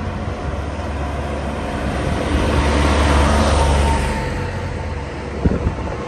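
A vehicle passing close by: its noise builds to a peak about three seconds in and then fades, over a low rumble. Two short knocks come near the end.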